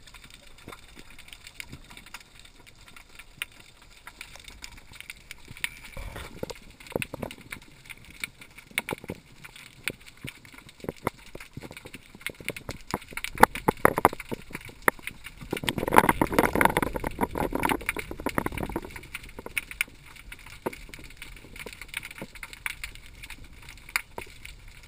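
Underwater ambience heard through a diver's camera: a steady crackle of sharp clicks and light knocks, with a louder rushing surge about two-thirds of the way through.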